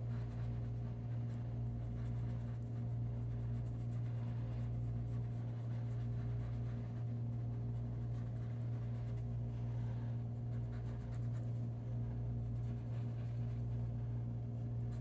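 Colored pencil shading on paper: a light, continuous scratching of the pencil strokes, over a steady low hum.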